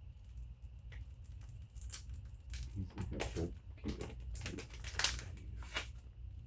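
Irregular swiping and crinkling strokes as a wet vinyl decal on a car door is smoothed down by hand to push out air bubbles, the strongest stroke about five seconds in, over a steady low hum.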